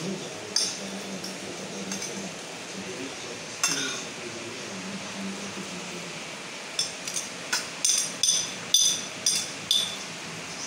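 Metal spoon and fork clinking and scraping against a glass plate while eating: a few scattered clinks, then a quick run of about ten sharp clinks near the end.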